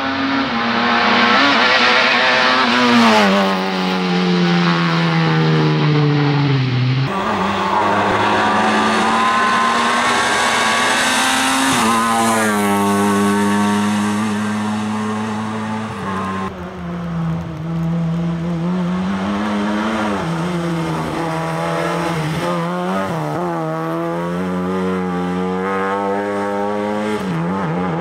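Lada 2105 rally car's four-cylinder engine driven hard on a stage, the revs repeatedly falling and climbing again through gear changes and lifts off the throttle.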